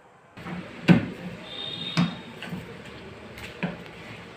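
Plastic snap clips of a moulded inverter battery cabinet clicking as the front panel is pressed into place. Three sharp clicks, with lighter taps and rubbing of plastic in between.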